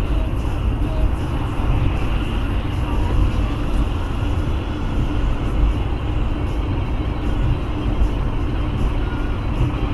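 Steady road noise inside a moving car's cabin at dual-carriageway speed: a low drone of tyres and engine, even throughout.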